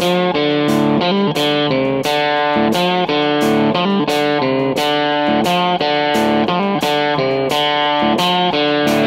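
Music: a guitar picking a repeating riff of single notes, about three a second.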